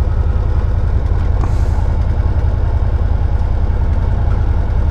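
Can-Am Maverick Sport 1000 side-by-side's V-twin engine idling steadily, a deep, even rumble heard from inside the cab.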